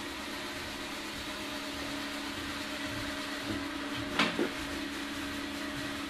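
LG Hom-Bot robot vacuum humming steadily as it drives back to its charging dock after finishing its cleaning run, with one short knock about four seconds in.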